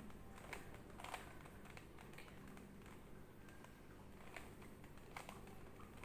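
Plastic Rubik's cube being twisted by hand: faint, irregular clicks and clacks as the layers turn, about seven over the stretch.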